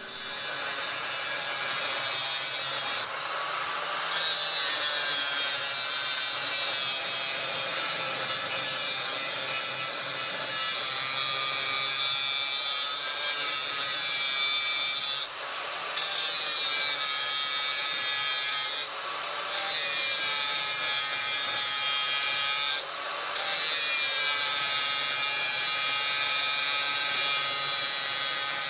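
Handheld electric power tool running under load against the car's steel, a steady whine that sags slowly in pitch as it bears in. It eases off briefly about 3, 15, 19 and 23 seconds in.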